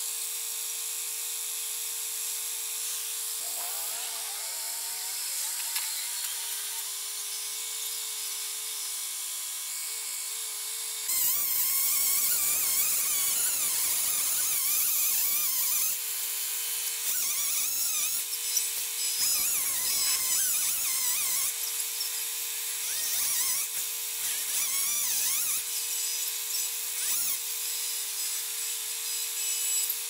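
Chainsaw running, its pitch wavering up and down as it cuts a tree trunk. About a third of the way in the sound gets louder and fuller.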